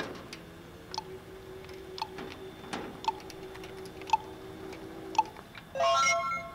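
Burro autonomous farm cart robot driving up close on its return run: a steady electric motor whine with a sharp tick about once a second, then a short electronic chime of several tones near the end.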